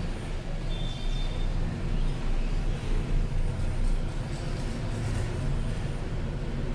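Steady low background rumble, with one short high-pitched squeak about a second in as a marker is drawn across a whiteboard.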